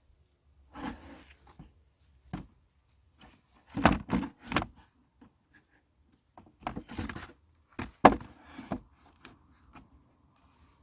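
Handling noises: short scrapes and sharp knocks in clusters, about a second in, around four seconds in and again around seven to eight seconds in, with the loudest knocks near four and eight seconds.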